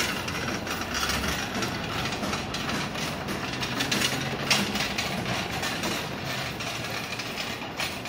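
Steady street noise with a low engine-like rumble underneath.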